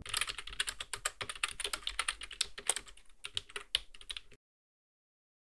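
Rapid keyboard typing clicks, a sound effect for a title card whose text appears letter by letter. The clicking stops abruptly about four seconds in, followed by dead silence.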